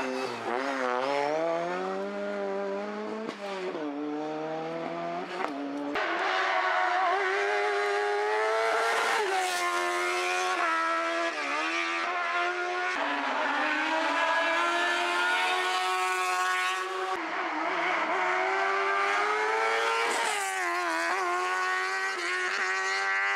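Racing car engines at high revs, one car after another: each pitch climbs, drops sharply at a gear change or lift-off and climbs again. A rally car is followed by open sports-prototype hillclimb cars.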